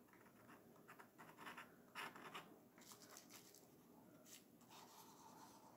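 Faint, irregular scraping of a knife point scratching into layered oil pastel on paper (sgraffito), a series of short strokes, the loudest about two seconds in.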